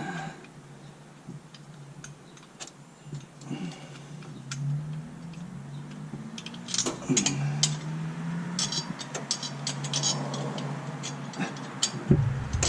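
Wrenches and loose metal parts clicking and clinking irregularly as bolts and a throttle bracket are worked off a carburetor, with a busier run of metal jingles from about seven to nine seconds in.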